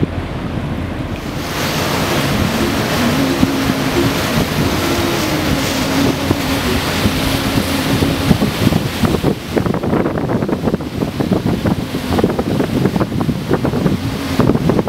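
Wind buffeting the microphone over the wash of the sea around a boat. It gets louder about a second and a half in and turns gusty and choppy in the second half.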